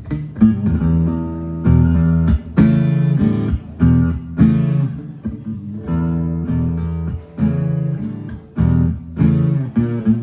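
Acoustic guitar strumming chords in a rhythmic pattern with sharp accents over a low bass line: the instrumental intro of a song, right after a count-in.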